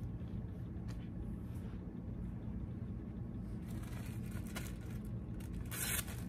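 A clear plastic garment bag crinkling as it is handled and lifted out of a cardboard box, with a short, louder rustle near the end, over a steady low room hum.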